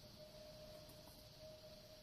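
Faint, steady, single-pitched hum held without a break, wavering slightly in strength over a light hiss: the unexplained sky sound the recorder is puzzling over.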